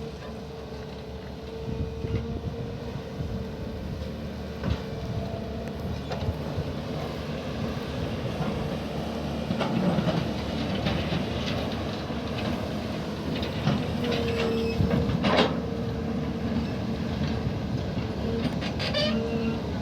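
Heavy diesel machinery running steadily with a continuous whine, and occasional sharp metal clanks.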